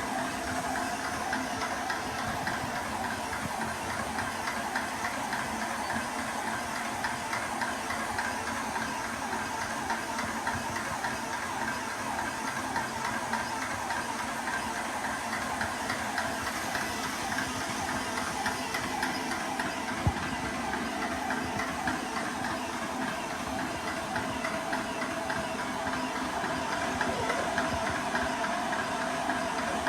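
Portable high-pressure PCP air compressor running steadily: an even motor drone with a hiss, with a single click about twenty seconds in.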